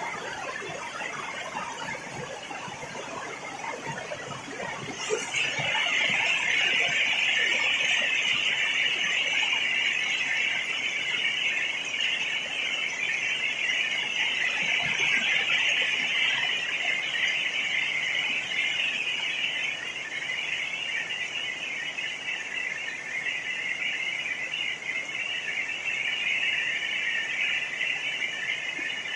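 Rain falling, joined about five seconds in by a loud, steady, shrill buzzing that sits over the rain and carries on.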